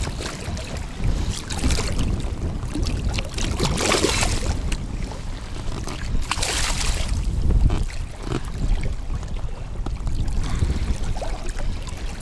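Hooked asp splashing and thrashing at the surface beside an inflatable boat as it is reeled in, with two bigger splashes about four and about seven seconds in. Wind rumbles steadily on the microphone throughout.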